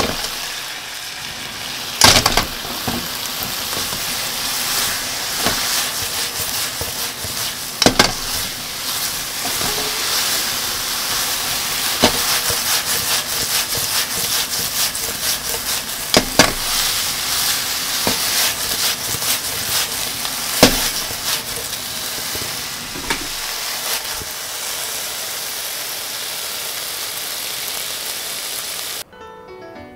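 Thick fried tofu cubes and okra sizzling in a nonstick frying pan as they are stirred and tossed with a spatula, with a few sharp knocks of the spatula against the pan. The sizzling cuts off abruptly about a second before the end.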